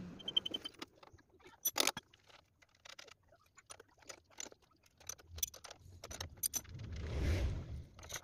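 Metal tools and bolts clinking and tapping as a part is fitted and tightened with a spanner on a small go-kart engine: scattered sharp clicks, one louder about two seconds in and a cluster towards the end. A brief rumbling swell of noise comes near the end.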